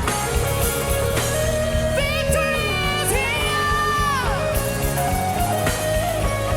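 Live gospel worship music: a singer holds long wordless notes that slide up and down over a band with guitar and heavy bass.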